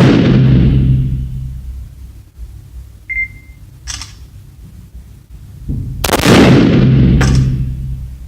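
Gunshots from large firearms: the long ringing tail of a loud shot to begin with, and a second loud shot about six seconds in that rings on for about two seconds, with a sharp crack just after it. A fainter crack comes about four seconds in, and a short high beep about three seconds in.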